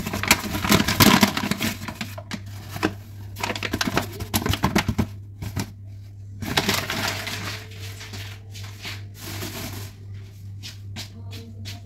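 Paper flour bag crinkling and rustling in several bursts as flour is shaken out into a stainless steel mixing bowl, over a steady low hum.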